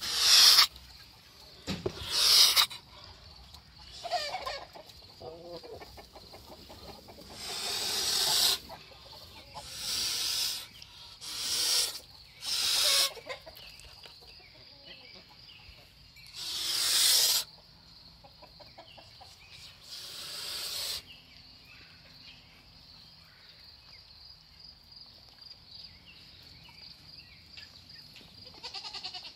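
Broody white domestic goose on her nest hissing in about nine short, sharp bursts, with a few soft calls in between. The hissing is her defensive warning at something close to the nest. It stops about two-thirds of the way through.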